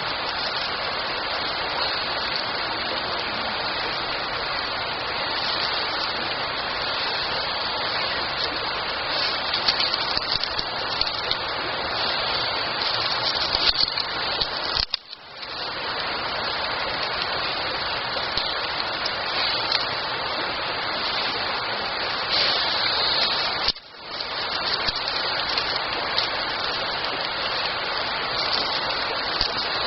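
Wood campfire burning with a steady, dense rushing hiss, briefly dipping twice, about halfway through and again about two-thirds of the way in.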